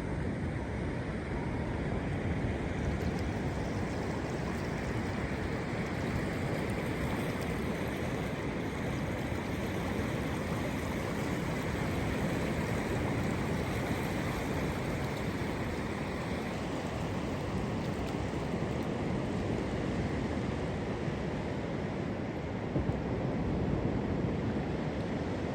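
Steady rushing of water, with wind blowing on the microphone.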